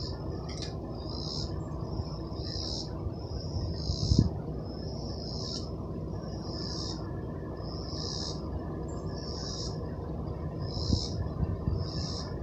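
Insects calling from the trees in a repeating buzz, each call swelling and stopping, about once a second, over a steady low background noise with a few louder low thumps.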